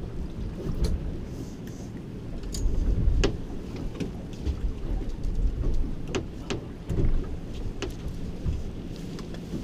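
Wind buffeting the microphone in a low, uneven rumble aboard a small open boat, with several sharp clicks and knocks of tackle being handled while a fish is unhooked.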